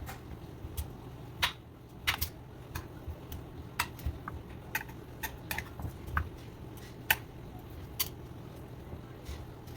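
Dishes and utensils being handled: irregular clinks and knocks, some with a short ring, over a low steady hum.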